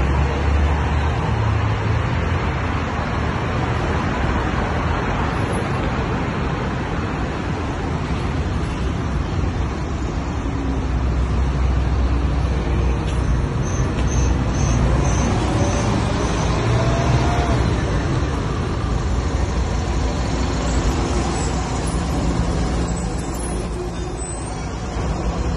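Steady city street traffic: cars driving past and engines running, with a bus close by near the end. A brief run of about six high chirps sounds around the middle.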